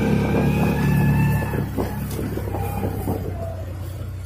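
Engine of a small off-road vehicle running steadily while it drives, with a high steady whine over it for the first second and a half, then some rattling. It grows gradually quieter toward the end.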